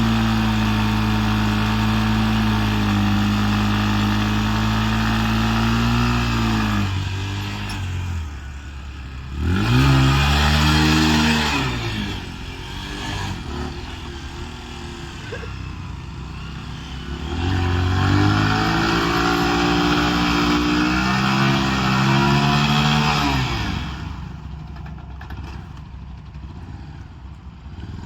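Motorcycle engine held at high revs for about six seconds, then dropping off. It is revved up sharply twice more, once briefly and once held for several seconds, and each time falls back to a lower, rougher note.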